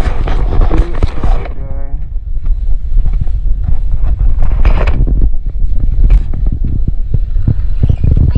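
Noise inside a car cabin: a heavy low rumble with rubbing and knocking from the phone being handled, and a brief buzzing sound about two seconds in.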